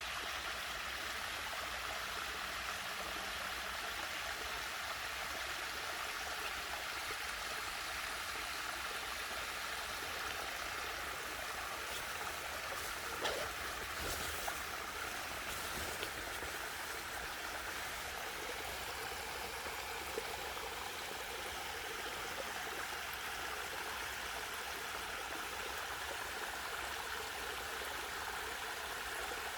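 Mountain stream water flowing with a steady rush, with a couple of faint knocks near the middle.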